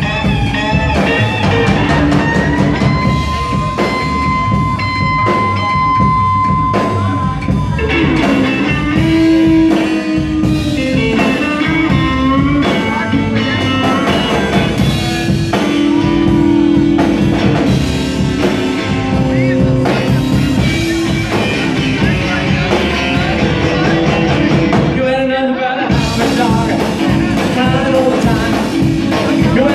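Rockabilly band playing live: electric guitar lead with long held and bending notes over upright bass and a drum kit. The band cuts out for a moment near the end, then comes straight back in.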